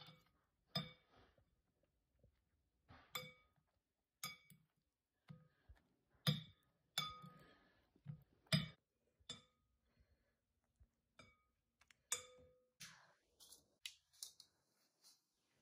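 Metal fork clinking against a glass mixing bowl while turning a slice of bread in beaten egg: about a dozen light taps, each with a brief glassy ring. A short rustle comes near the end.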